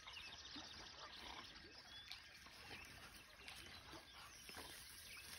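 Near silence: faint outdoor ambience with a few scattered, distant bird chirps.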